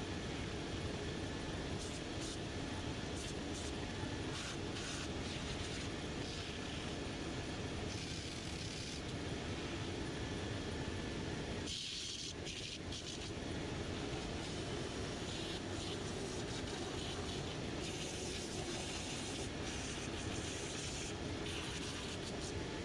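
Cobbler's finishing-machine belt sander running steadily, with a rubber Vibram sole protector and then a boot's leather sole held against the sanding belt to rough the surfaces up so the glue holds. The noise dips briefly about halfway through.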